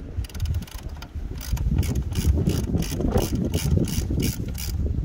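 Hand ratchet with a T20 Torx bit clicking as it undoes the screws of a mass airflow sensor. A quick run of fine clicks comes first, then steady clicking at about three to four a second.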